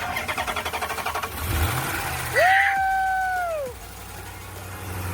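Dodge Charger SRT8's Hemi V8, helped by starting fluid, cranking in rapid even pulses on the starter, then catching about a second in and revving up before settling to idle after sitting for two years. A loud, high held tone sounds for about a second and a half in the middle, then breaks off.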